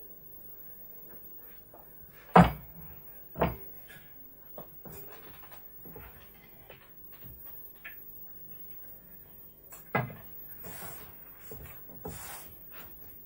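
Sharp knocks or bangs over a quiet background: a loud one a little over two seconds in, a weaker one a second later, and another about ten seconds in, with scattered small clicks between.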